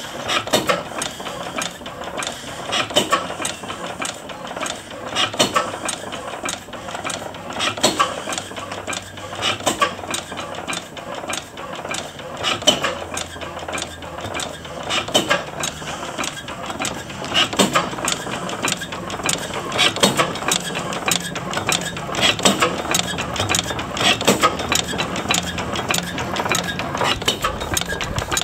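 1910 Blackstone horizontal oil engine running nicely, its governor working: a steady fast clatter of valve gear and moving parts, with a heavier beat about every two and a half seconds.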